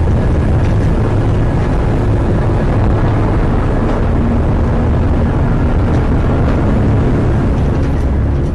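Storm wind blowing hard across the microphone: a loud, steady rush, heaviest in the low end.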